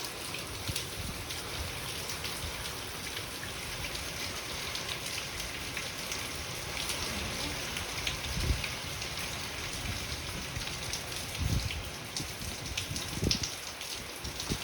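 Hurricane rain falling steadily, a hiss of many separate drops hitting surfaces, with three brief low bumps in the second half.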